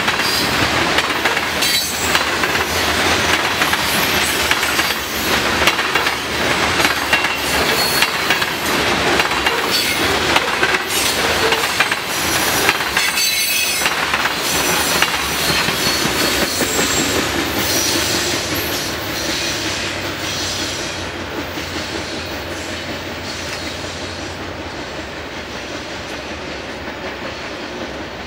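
Freight cars of a long manifest train rolling past, their wheels clattering over the rails. The noise fades gradually over the last ten seconds as the end of the train goes by.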